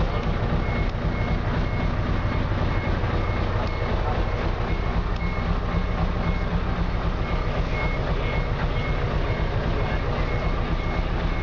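Mitsubishi Fuso FV415J concrete mixer truck's diesel engine running steadily, with a high beep repeating in short even pulses over it.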